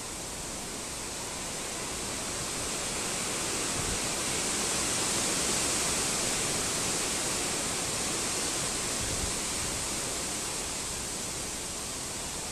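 Storm wind rushing through a tree's leaves: an even hiss that swells to a gust around the middle and eases off again.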